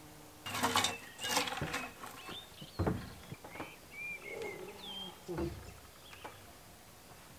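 Knocks and scrapes of a board being handled on top of a steel shipping container. A cluster of knocks comes in the first second and a half, with single knocks about 3 and 5.5 seconds in. Birds chirp briefly in the middle.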